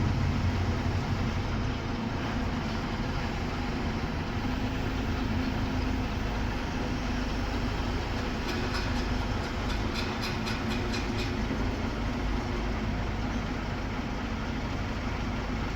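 Engine of heavy construction machinery running steadily, with a quick run of light ticks about two-thirds of the way through.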